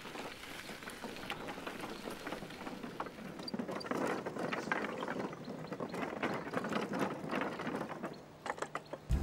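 Bicycles and their towed trailers rolling across a timber bridge deck, the tyres rattling and clattering over the planks, louder about four seconds in as the riders pass close. A few separate knocks near the end as a trailer wheel rolls over the boards.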